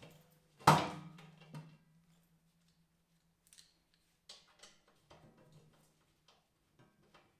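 Workshop work sounds: one loud, sharp knock about two-thirds of a second in, a smaller knock about a second later, then scattered light clicks and taps, with a faint steady low hum underneath for the first few seconds.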